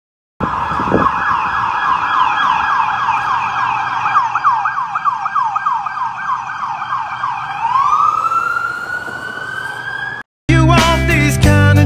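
Police car siren on a fast yelp, about four sweeps a second, that changes near the end into a slower rising wail and then cuts off suddenly. A rock song with guitar follows for the last second or so.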